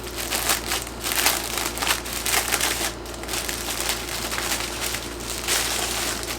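Plastic garment packaging crinkling and rustling in irregular bursts as a packaged t-shirt is handled.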